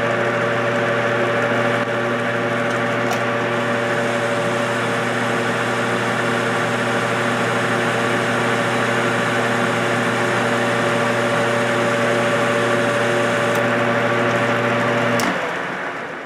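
Metal lathe running steadily while a CCMT indexable carbide insert takes a turning cut on aluminum: a steady motor and gear hum under a constant hiss. Near the end the lathe is switched off and the sound dies away over about a second.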